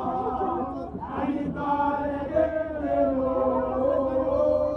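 A group of people chanting a song together in unison, holding long notes that shift in pitch every second or so, as in Ewe Borborbor singing.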